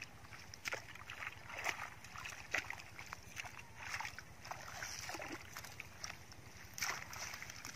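Hands groping and splashing in shallow muddy water: irregular small splashes and sloshes, a few louder ones about a second apart.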